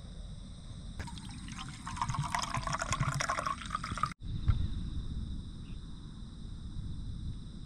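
Milky drink poured from a flask into a stainless steel camping mug, splashing and filling for about three seconds before it stops abruptly.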